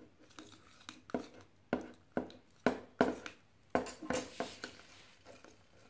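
A spoon knocking and scraping against a plate while stirring white glue and laundry detergent together into slime, an uneven series of sharp clicks about two a second.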